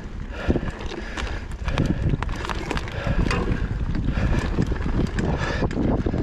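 Mountain bike riding a rutted dirt trail: a steady low rumble of tyres on the ground, with many irregular clicks and rattles from the bike over the rough surface.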